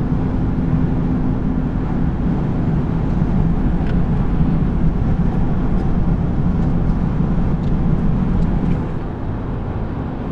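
Car driving along a road: a steady rumble of engine and road noise with a low hum, easing a little near the end.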